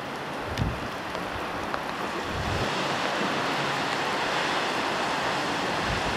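Wind rushing on the microphone over the wash of surf, a steady noise that swells a little about two and a half seconds in.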